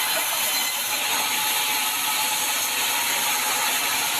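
Sawmill saw ripping sengon wood, a steady high even noise with a faint steady whine and no pauses.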